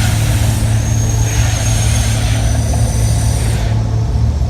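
The Mirage volcano show's eruption effects: a deep, steady rumble with a loud hissing rush over it that cuts off suddenly near the end.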